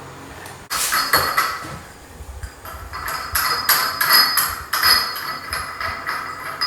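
Hard light-kit parts of a ceiling fan being handled, knocking and clinking against each other with a bright ringing. It starts suddenly about a second in and comes in a string of irregular clinks.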